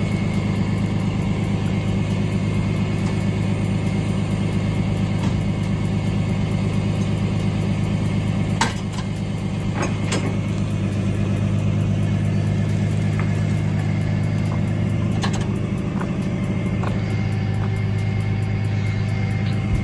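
Flatbed tow truck's engine idling steadily, with a few sharp knocks about halfway through and again later.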